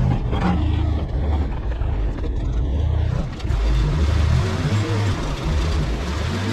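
Motor vehicle engine running with a loud, uneven low rumble, joined by a rising hiss about halfway through.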